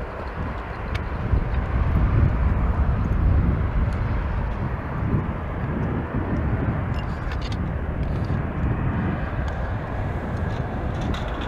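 Airbus A321-211 airliner's CFM56 jet engines running steadily as it taxis onto the runway: an even, mostly low-pitched engine noise.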